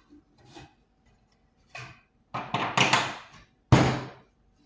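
Wooden boards being handled: a few short knocks and rubs, then a sharp wooden thunk near the end that rings briefly.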